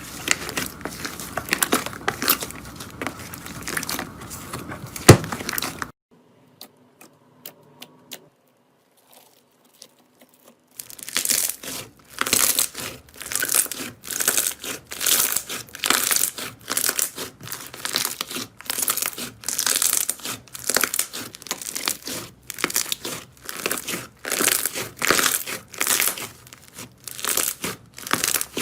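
Slime being squeezed and pressed by hand, crackling and crinkling. Dense crackling at first breaks off about six seconds in for a few near-silent seconds; then the crackly squishes come back in an even rhythm, a little more than once a second.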